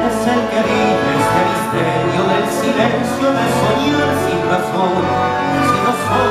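Tango orchestra (orquesta típica) playing live: bandoneons, violins and double bass, with sharp accented beats.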